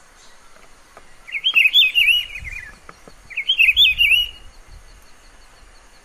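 Rufous-browed peppershrike (pitiguari) singing: two loud phrases of quick, rising-and-falling whistled notes, the first about a second and a half long, the second about a second long after a short pause.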